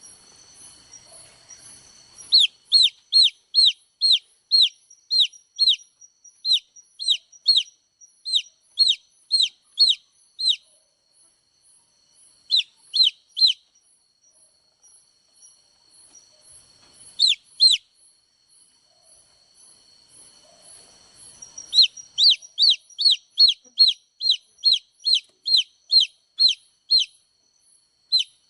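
Baby chicks peeping: short, sharply falling high-pitched chirps about two a second, in bouts with pauses of a few seconds between them. A faint steady high-pitched tone with fast faint ticking lies underneath.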